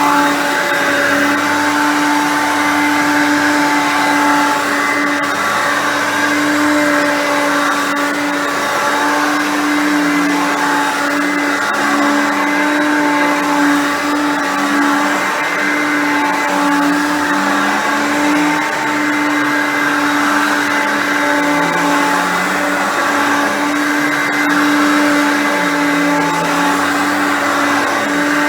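Hoover Concept Two upright vacuum cleaner's 5.6-amp motor running on its highest speed while vacuuming: a loud, screaming motor over a steady rush of air, with a lower tone that wavers up and down every second or two. The brushroll is partly struggling, which the owner put down to the belt.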